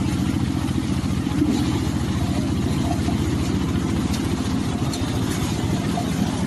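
Engine of a rice harvesting machine running steadily at an even speed, with a fast, regular pulse.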